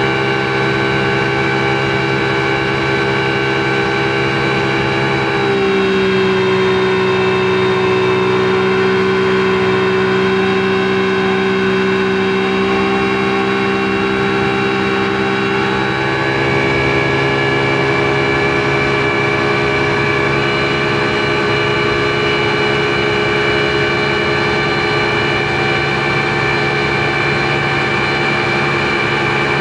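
Speedboat engine running steadily under way, heard from on board; its note shifts about five seconds in and again about sixteen seconds in.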